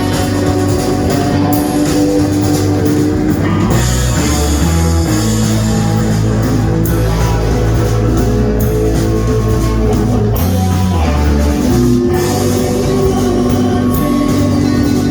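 A rock band playing live: electric guitar and bass over a drum kit, with held bass notes that change every second or two.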